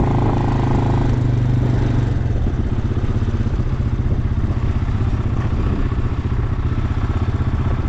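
Tractor engine running steadily; about two seconds in its even hum turns into a rapid, rhythmic throb.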